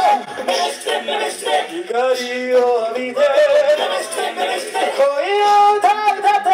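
Live a cappella group singing through microphones, lead voices over backing harmonies, ending on a long held note.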